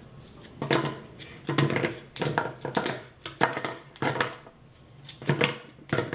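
Plastic spring clamps being pulled off a small glued wooden piece and dropped onto a plywood workbench: a string of about a dozen clicks and clattering knocks, often two close together.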